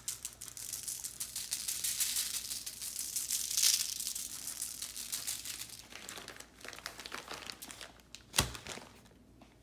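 Light brown sugar sprinkled by hand onto a sheet of aluminium foil: a dense spray of fine granules ticking on the foil for the first several seconds, then thinning out. A single sharp knock comes about eight seconds in.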